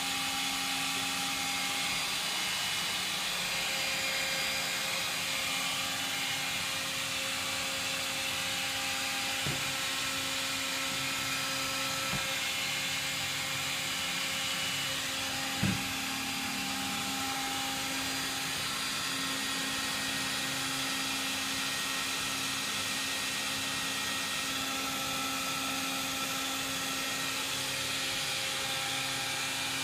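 A cordless stick vacuum cleaner runs steadily, a constant motor hum and whine with suction hiss, as its head is pushed over a wooden floor and rug. There are a few light clicks, and a single sharper knock about halfway through.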